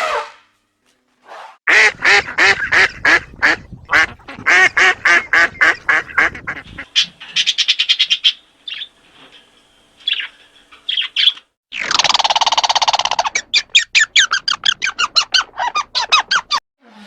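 Ducks quacking in fast runs of short calls, about five a second. About twelve seconds in there is a longer, harsher squawk.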